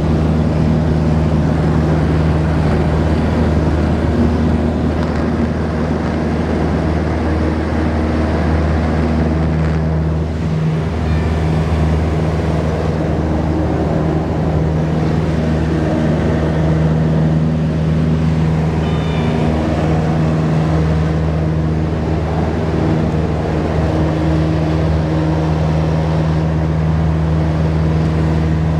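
Cessna 172 Skyhawk's piston engine and propeller running at full power through the takeoff roll and climb-out, a steady loud drone heard from inside the cabin.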